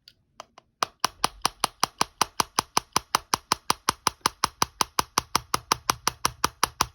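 Rapid, even tapping with a hard object on an iPhone 6s. It begins with a few light taps, then settles into about five or six sharp taps a second. The taps land near where the charging port connects to the battery, an improvised way to jolt a phone that won't boot into starting.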